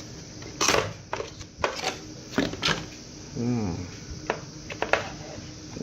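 Plastic packaging being handled: a rustle and a series of sharp clicks and light knocks. A brief hummed voice comes about three and a half seconds in.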